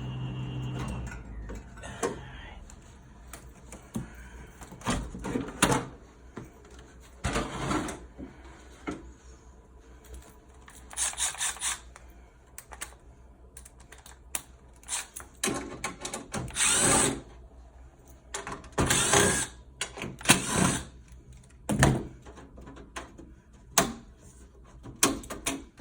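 Amana PTAC heat pump running with a steady hum and high whine, the sign of its failing blower motor, cutting off about a second in. After that, a power drill runs in short bursts, with clicks and clunks between them, as screws come out of the unit's panels.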